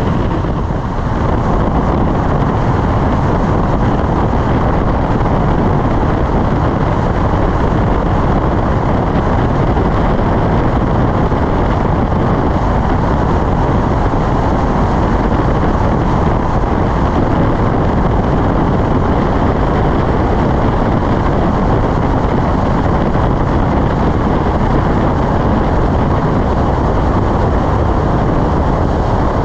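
Freefall wind rushing over a skydiver's body-worn camera microphone: loud, steady wind noise that does not let up.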